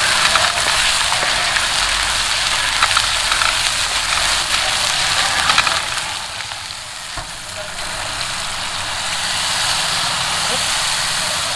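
Food frying in hot oil in a pan: a steady sizzling hiss with small crackles, easing a little about six seconds in and then building again.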